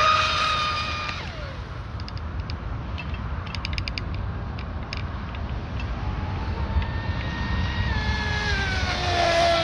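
RC speed boat's 4074 2000kV brushless motor and propeller running at high speed, a high whine peaking as the boat passes and falling in pitch about a second in. The whine fades, then comes back from about seven seconds and drops in pitch again as the boat passes near the end.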